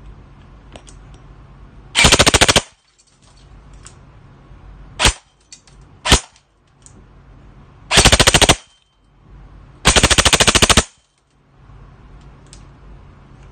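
Arcturus AR-15 polymer airsoft electric gun with an SHS high-torque motor on a 7.4 V LiPo, firing: a short full-auto burst, two single shots about a second apart, then two more full-auto bursts, the last nearly a second long.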